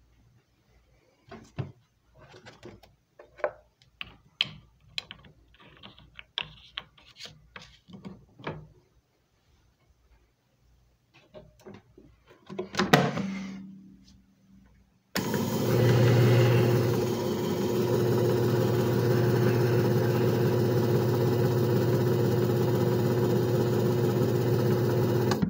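A series of light clicks and knocks as a DVD is handled and seated in a JFJ Easy Pro disc repair machine, with a clunk about 13 seconds in as the clear cover is shut. About 15 seconds in, the machine's motor starts abruptly and runs steadily with a low hum for about ten seconds, a 10-second repair cycle, then cuts off.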